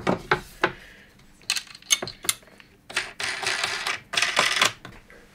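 Small metal hardware clicking and clinking as washers and machine screws are fitted through the fence of a mitre saw, with two longer scraping rattles about three and four seconds in.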